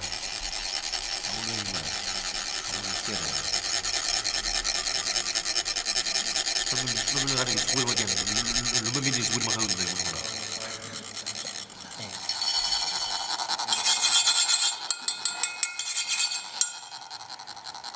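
Metal chak-pur funnels being rasped, a rod drawn along the ridged funnel to trickle coloured sand onto a sand mandala: a fast, continuous rasping. After a brief lull about two-thirds of the way in it comes back louder, with separate scraping strokes near the end.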